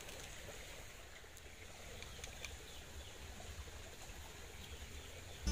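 Faint, steady outdoor ambience with the soft rush of a slowly flowing small river, and a few faint ticks about two seconds in.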